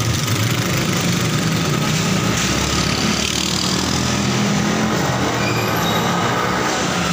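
Street traffic noise: a vehicle engine running nearby over a steady wash of road noise.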